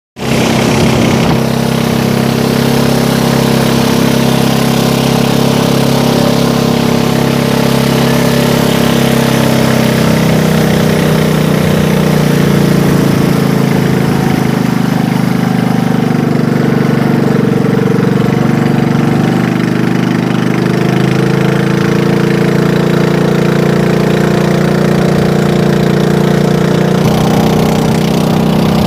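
Small engine of a pump boat running steadily under way, a constant drone at an even pitch.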